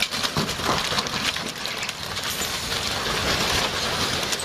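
Heavy tow truck sliding off a snow-covered road edge and down the slope: steady rumbling and scraping with many small clattering knocks.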